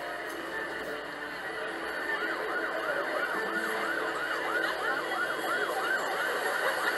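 A siren sounding in a rapid repeating yelp, about three pitch sweeps a second, starting about two seconds in and growing louder, over faint background music.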